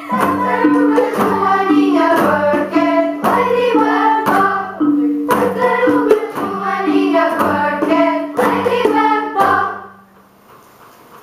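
A school class ensemble of recorders and tuned percussion playing a short rhythmic tune, ending about ten seconds in, after which only faint room noise remains.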